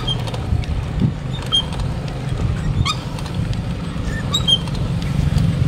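Wind rumbling steadily on the microphone of a bicycle riding uphill, with a few short high chirps and faint clicks over it.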